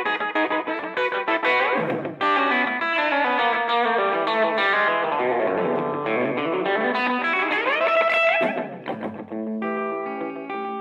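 Gretsch G5422 Electromatic hollow-body electric guitar playing a fast picked rockabilly lead. A run of notes slides upward in pitch near the end, then gives way to steadier held notes.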